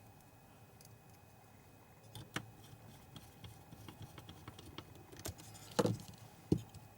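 Light clicks and taps of small projector parts being handled as the colour-wheel assembly is fitted and checked for rubbing, with a few louder knocks near the end.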